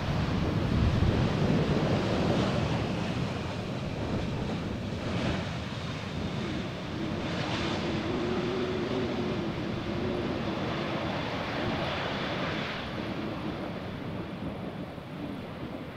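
A jet airliner landing, its engines a loud rumble over the first few seconds that eases into a steady drone with a faint whine. Wind buffets the microphone.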